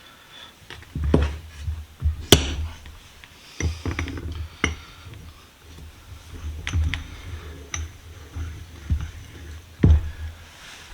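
Vise screw being fed back through the vise body: scattered metal clinks and knocks of the parts being handled, with low handling thuds between them.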